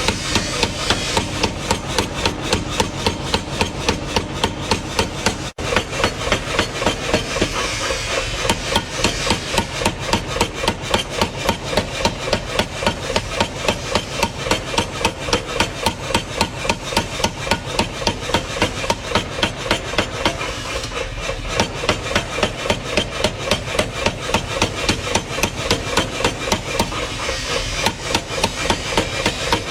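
Hammer blows forging a steel knife blade, struck in a steady rhythm of about three a second.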